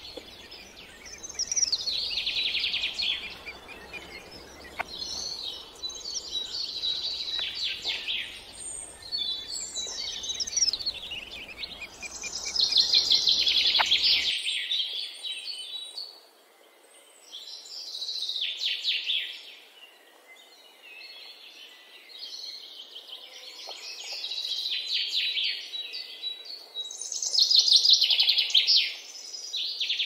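Songbird nestlings begging for food in the nest: repeated bursts, a second or two long, of high, rapid chattering calls. The first bursts come from fieldfare chicks. About halfway through, the background hiss drops out and a second brood's similar begging calls continue.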